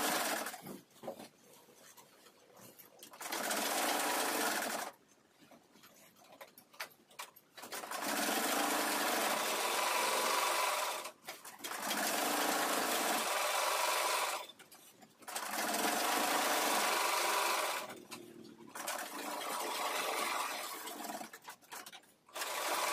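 Sewing machines stitching fabric in about six runs of two to three seconds each, stopping briefly between runs.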